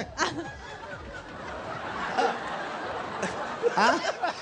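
Crowd laughing and chattering, swelling steadily over the first few seconds, with a louder burst of laughter near the end.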